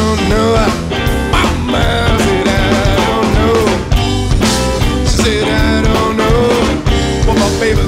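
Blues band playing an instrumental passage: a lead line of bending, sliding notes over bass and drums with a steady beat.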